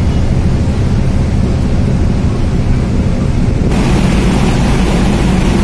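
Steady low rumble of a car ferry underway, its diesel engines droning beneath wind noise on the microphone; the hiss turns brighter about two-thirds of the way in.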